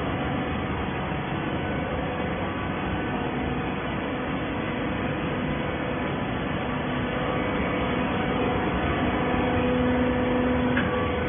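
Hydraulic baling machine running: a steady mechanical drone with a low hum that grows somewhat louder in the second half.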